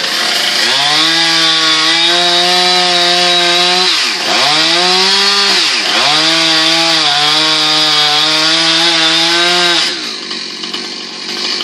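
Two-stroke chainsaw revved to full throttle and cutting into the tree. The engine note holds high, sags briefly twice midway, then falls back to idle near the end.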